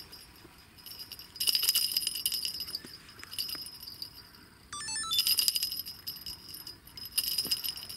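A pair of small bite-alarm bells clipped to a bank fishing line jingling in about five short bursts, with pauses between them, as the line twitches: a fish is biting.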